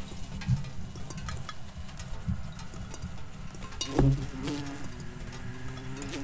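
Low, steady fly-like buzzing, peppered with small sharp clicks; about four seconds in a knock sounds, and a low steady hum holds after it.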